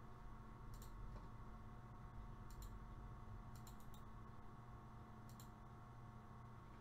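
Faint computer mouse clicks, mostly in quick pairs every second or two, with a cluster of three or four about three and a half seconds in, over a low steady hum.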